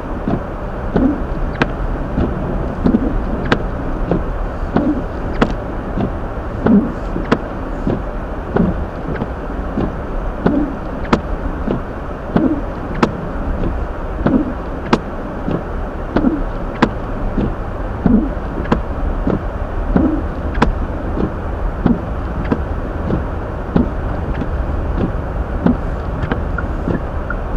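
Steady road and tyre noise heard inside a Hyundai Elantra's cabin as it drives on a snow-covered road, with soft thumps about once a second and frequent light ticks.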